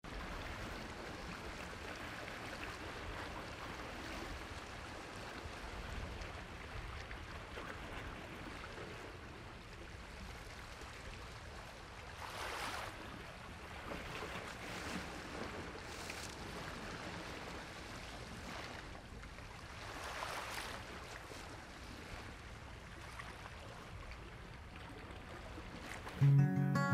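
A steady rushing outdoor noise, like wind or surf, that swells several times. Just before the end, music with guitar comes in suddenly.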